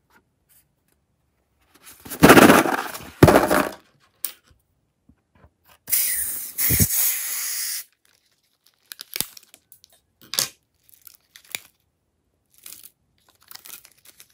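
Slime-filled rubber balloon being handled and cut open with a blade: a few loud rubbing and tearing noises in the first half, a steady hiss lasting about two seconds in the middle, then light scattered clicks and crackles.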